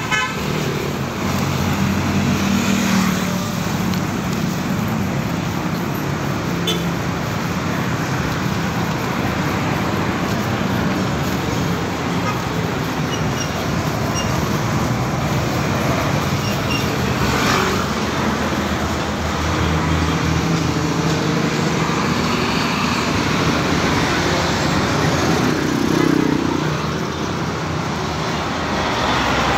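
Street traffic noise, with motor vehicle engines running and passing, the hum swelling now and then.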